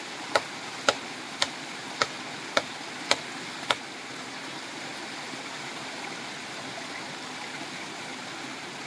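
Seven sharp knocks about half a second apart, stopping about four seconds in, as a length of fish-poison vine is struck against a streamside rock to loosen its bark. A stream runs steadily underneath.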